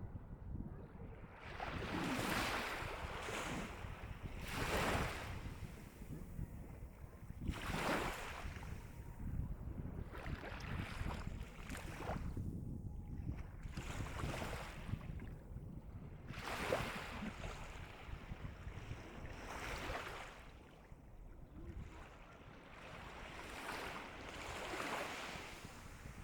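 Calm sea waves washing onto the shore, each one a swelling rush of surf every two to three seconds, over a steady low rumble.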